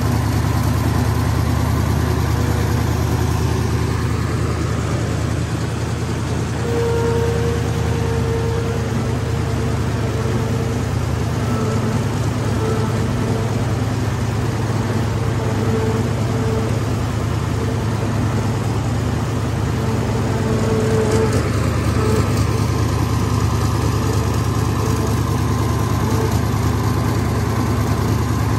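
Hino F21C V8 diesel engine of a mud tractor running steadily, with a higher whine over it through the middle stretch.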